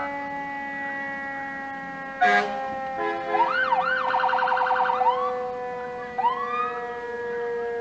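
Emergency vehicle sirens. A long held siren tone slowly sinks in pitch throughout. A short horn blast comes about two seconds in, then a fast yelping warble from about three to five seconds, and a single rising-and-falling whoop near six seconds.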